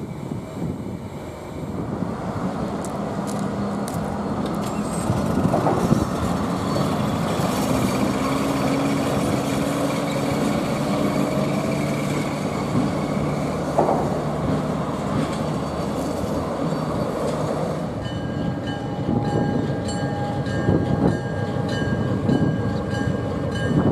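Diesel locomotives running in a rail yard: a steady engine hum with the noise of rolling rail cars. About three-quarters of the way through, the sound changes abruptly to a different locomotive, and a steady high-pitched tone rings over it.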